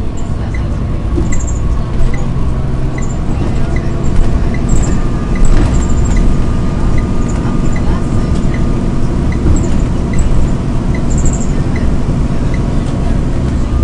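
Volvo bus running on the road, heard from on board as a steady low engine and road rumble. Through it runs a regular light tick a little under twice a second, with occasional faint high squeaks.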